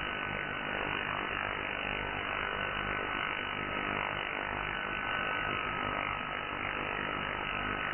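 Shortwave receiver audio from a FLEX-3000 software-defined radio tuned to the 30 m band in upper-sideband digital mode: steady band-noise hiss with a low hum under it. An interfering carrier whistles through it as a steady mid-pitched tone that sinks slightly in pitch.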